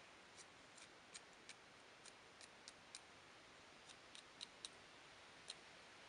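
Campfire of small sticks crackling faintly: about a dozen sharp, irregular pops from the burning wood, the louder ones a little past halfway through.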